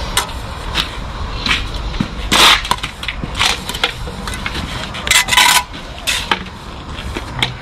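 Steel trowel scraping and clinking as mortar is worked into the brick joints: a string of short scrapes and taps, the longest and loudest about two and a half and five seconds in.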